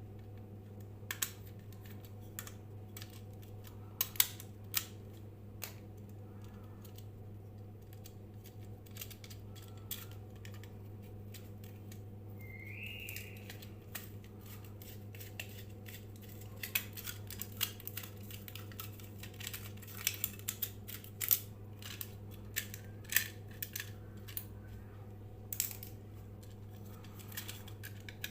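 Scattered sharp clicks and snips from hand work with small tools and parts, more frequent in the second half, over a steady low hum.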